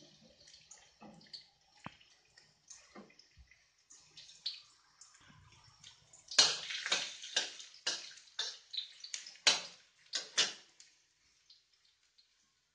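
Minced garlic sizzling and crackling faintly in hot oil in a steel wok. About six seconds in, a metal spatula starts stirring and scraping it in a run of loud strokes, which stop shortly before the end.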